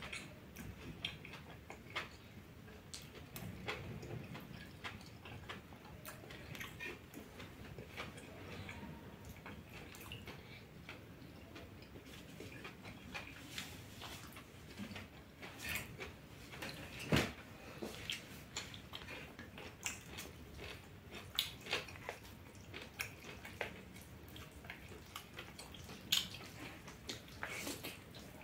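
Close eating sounds: a person chewing goat meat and noodles, with many short wet smacks and clicks of the mouth, and one sharper knock about two thirds of the way through.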